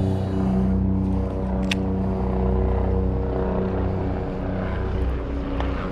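A steady engine drone holding one constant pitch, with a single sharp click about two seconds in.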